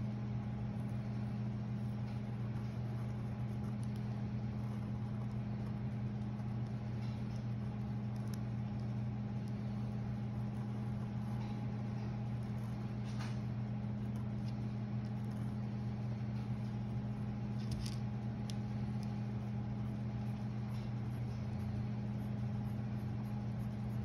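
Steady low machine hum, unchanging throughout, with a few faint light ticks.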